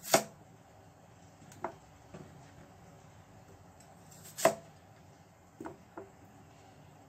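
Large kitchen knife cutting through raw potatoes onto a plastic cutting board. There are two sharp knocks of the blade striking the board, about four seconds apart, with a few lighter knocks and taps in between and near the end.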